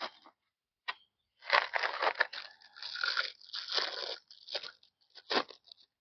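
Plastic packaging crinkling and tearing as it is handled and unwrapped, coming in irregular spells with a few sharp clicks.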